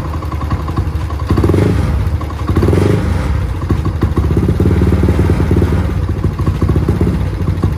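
Yamaha Aerox scooter's single-cylinder engine with a K-Race STD Racing exhaust, revved in neutral on its stand: two short blips, then a longer held rev, before settling back to idle. The note is mellow.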